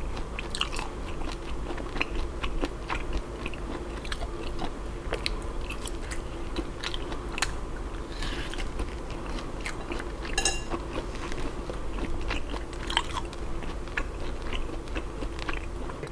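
Close-miked eating of grilled pork belly in mala sauce, bitten off bamboo skewers: wet chewing, smacking and crunching, with many small irregular clicks.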